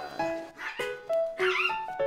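Background music, a simple melody of short held notes, with a small dog giving a brief high-pitched cry about a second and a half in.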